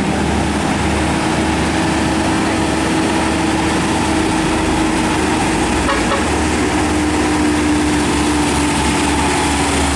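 Hino 500 heavy truck's diesel engine running as the truck drives slowly through a bend: a steady low drone with a hum that sinks slightly in pitch near the end.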